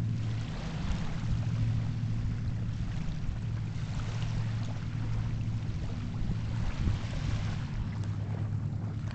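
Steady low engine drone that holds one pitch.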